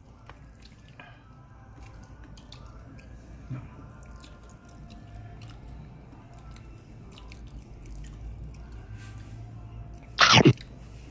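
A person chewing sushi close to the microphone, with small scattered mouth clicks. About ten seconds in, one short loud vocal sound.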